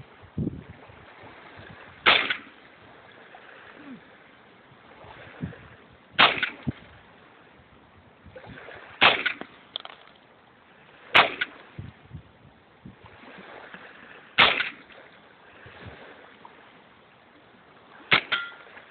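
Aimed single shots from a suppressed AR-15-style rifle, about seven of them at a slow, deliberate pace two to four seconds apart, with the last two in quick succession near the end.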